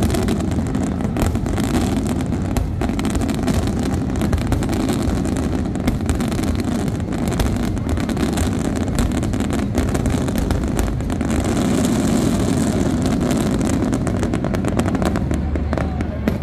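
Fireworks barrage: an unbroken run of shell bursts and crackle merging into a steady rumble, with sharp reports throughout and a slight swell in the second half.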